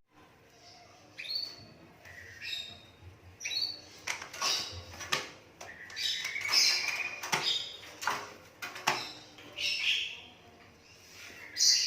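Hand-reared Javan pied starling (jalak suren) giving a series of short, harsh calls, some gliding upward in pitch, mixed with a few sharp clicks.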